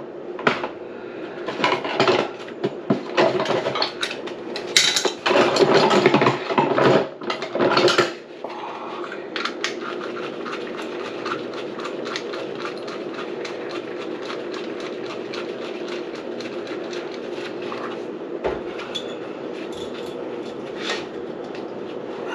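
Hard objects clattering and knocking at a kitchen sink for the first several seconds, then a steady mechanical hum with a few faint ticks.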